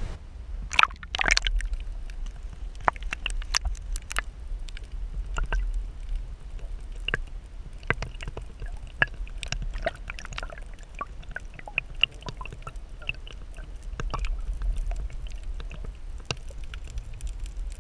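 Water sloshing and gurgling around a camera held under the water, with a steady low rumble and many scattered sharp clicks and crackles; two louder knocks or splashes come about a second in.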